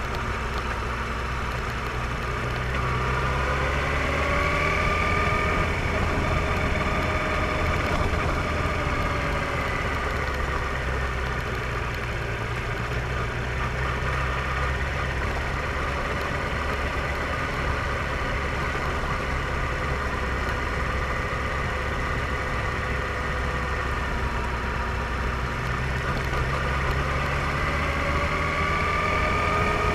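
Motorcycle engine running under way along a winding road, over a steady low rumble. Its note rises a few seconds in, eases back around ten seconds, holds steady, then climbs again near the end.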